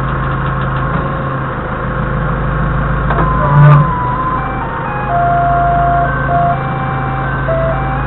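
Doosan 4.5-ton forklift's engine running steadily. A short low thud comes about three and a half seconds in, and from then on a simple electronic tune of held beeping notes plays.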